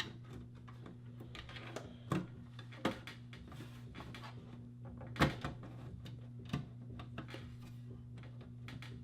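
Scattered knocks and clicks from the old desktop power supply being worked loose and pulled out of the computer case, the loudest about five seconds in. A steady low hum runs underneath.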